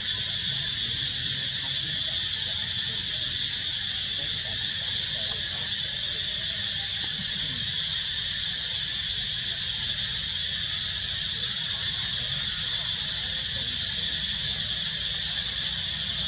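Steady, unbroken high-pitched drone of an insect chorus, with a low rumble underneath.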